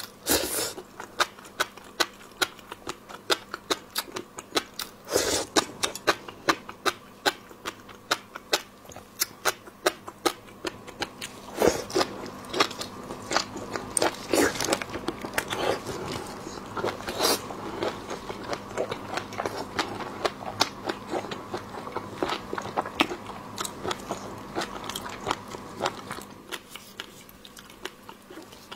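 Close-miked eating of a large whole shrimp: biting into the shell and chewing, with a dense run of crunching, crackling and wet mouth clicks that thins out near the end.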